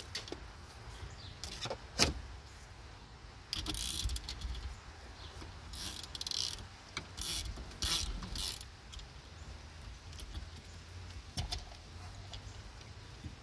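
Ezi-Wire windshield removal winder being cranked with a ratchet handle, winding in the cutting wire that pulls through the windshield's urethane bond. A sharp click comes about two seconds in, then several short bursts of rapid metallic ratcheting between about four and eight and a half seconds.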